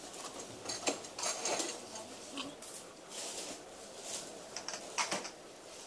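Supermarket background noise: a faint steady hiss with scattered short clicks and knocks, the sharpest about a second in and again near the end.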